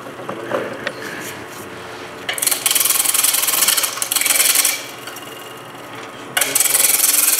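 Large skew chisel roughing down a Banksia seed pod spinning on a wood lathe. Two passes of harsh, hissing cutting noise: the first about two seconds in, lasting a little over two seconds, and the second starting near the end. A quieter, steady hum of the running lathe lies between them.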